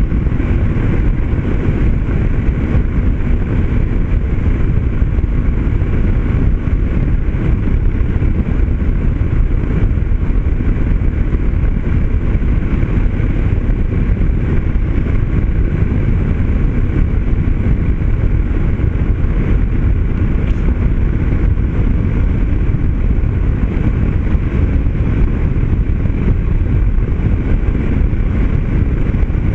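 Yamaha Ténéré 250 motorcycle cruising steadily at about 90 km/h, its single-cylinder engine running under a constant rush of wind noise.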